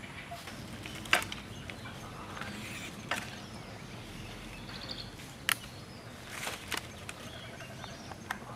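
Steady outdoor background noise broken by five or six sharp clicks or snaps, the loudest about a second in and a close pair a little after the middle.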